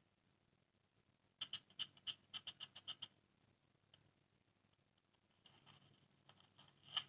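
Slime being pressed and worked by hand, making a quick run of about a dozen small sticky clicks and pops a second and a half in. It is followed by a fainter stretch of soft noise and one more pop near the end.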